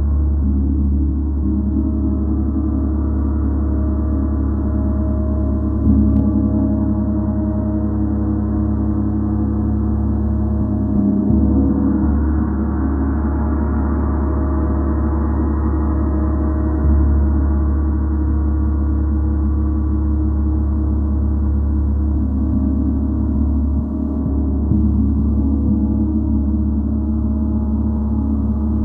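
Gong played with soft strokes every five or six seconds, each renewing a steady wash of many overlapping low humming tones that never dies away.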